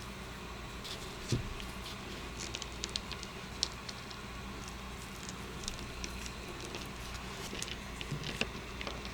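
Light, scattered clicks and crackles of food being handled for cookie-making, with one soft thump about a second in, over a steady low hum.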